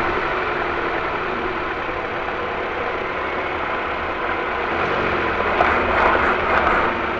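Ford Focus 2 steady running noise, then several sharp knocks from about two thirds of the way in. The knocks are the suspension knocking, which the owner thinks may come from the steering rack.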